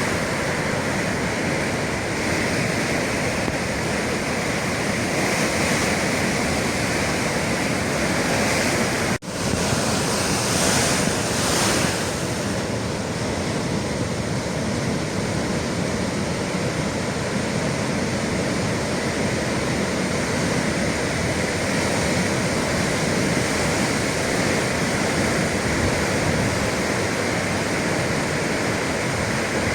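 Atlantic sea surf rushing and breaking, a loud steady wash of waves, with a brief drop-out about nine seconds in.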